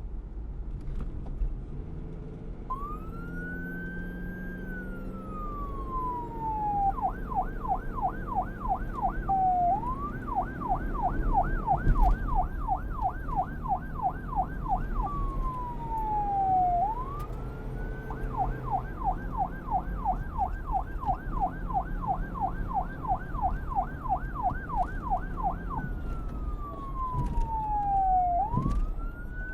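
Emergency vehicle siren switching between a slow wail, rising then falling, and a fast yelp warble, three runs of rapid warbling in all, over a steady low rumble.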